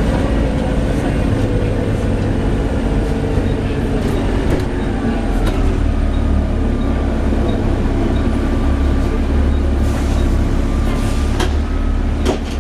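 Volvo B7TL double-decker bus's diesel engine running as the bus drives, its low rumble growing heavier about halfway through, with faint whining tones and a few sharp knocks and rattles near the end.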